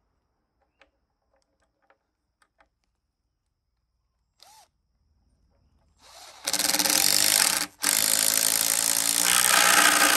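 Power tool motor running at a steady pitch in two long bursts, about a second and then nearly three seconds, with a brief break between them. A few light clicks and knocks come before it.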